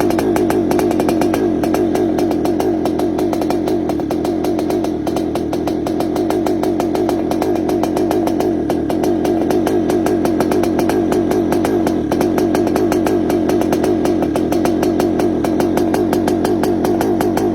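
Yamaha RX-King's single-cylinder two-stroke engine running steadily, its exhaust giving the raspy growl that RX-King riders call "ngorok" (snoring).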